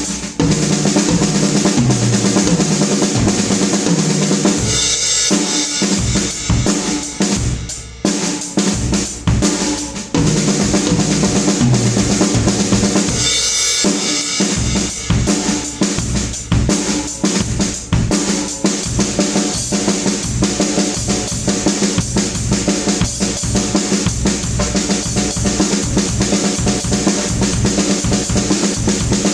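PDP M5 drum kit played in a steady groove of kick and snare hits, with cymbal crashes about five and thirteen seconds in.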